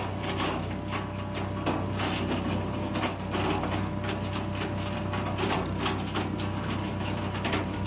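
Small engine-driven wood chipper running steadily, with irregular crackling and rattling of wood being chipped.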